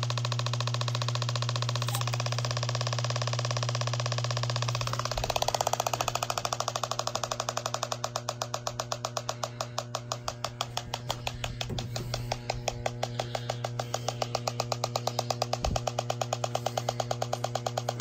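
H10 electronic refrigerant leak detector ticking in rapid, even pulses, about five a second, over a steady hum. The pulsing starts about five seconds in, the detector picking up refrigerant from the leaking evaporator coil.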